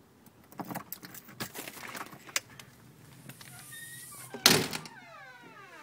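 A door being unlocked and opened: a string of clicks and knocks from the key and latch, then a loud thump about four and a half seconds in, followed by a drawn-out squeak that falls in pitch.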